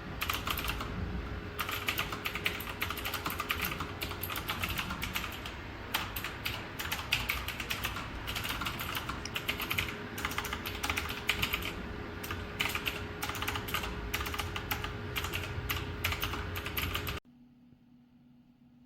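Fast continuous typing on the RK Royal Kludge S108 mechanical keyboard's blue clicky switches, a dense irregular patter of key clicks that stops abruptly near the end.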